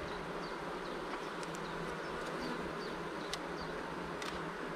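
Honeybees buzzing steadily over an open hive, some of them fanning. A few sharp clicks come from a metal hive tool against the wooden frames, the loudest a little past the middle.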